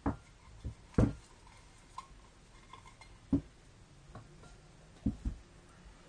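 Metal camping pots being handled, pulled apart and set down on a cloth-covered surface: about eight knocks and light clinks, the loudest about a second in, a few leaving a brief metallic ring.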